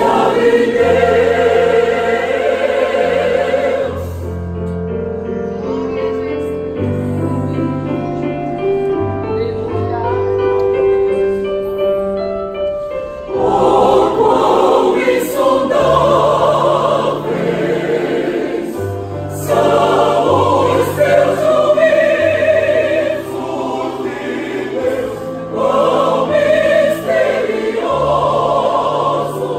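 Large mixed choir of women's and men's voices singing a worship hymn, over low sustained notes. It sings softer for a stretch after about four seconds, then swells louder again about halfway through.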